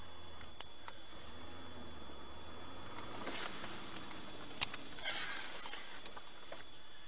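Vehicle cabin noise on a dashcam recording: a steady hiss with a constant high tone and a low hum that fades about four seconds in. A few sharp clicks and rattles sound, the loudest about four and a half seconds in, with brief rustling swishes around three and five seconds in.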